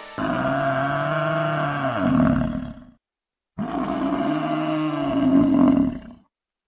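Two long, deep animal roars, each about three seconds, dropping in pitch near the end. Each cuts off abruptly into dead silence.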